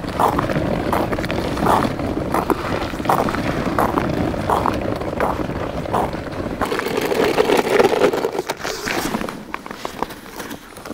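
Footsteps on ice, about one and a half a second, over a continuous rough scraping rumble. About seven seconds in the steps stop and a louder rustling scrape follows as gear is handled.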